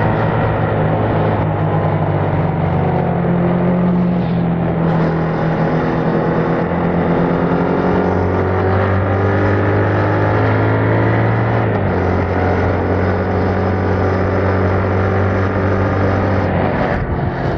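Yamaha MT-07's 689 cc parallel-twin engine running under way through its stock exhaust, a steady note whose pitch drops in steps about eight and twelve seconds in.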